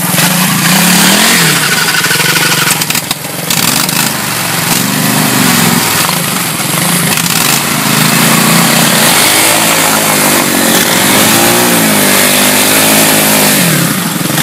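Three-wheeled ATC's small engine revving up and down repeatedly as it churns through deep mud and water, with a steady splashing hiss underneath.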